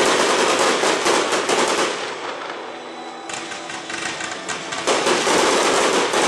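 Fireworks barrage: a dense, rapid crackle of many sharp reports. It eases off about two seconds in and swells again about five seconds in.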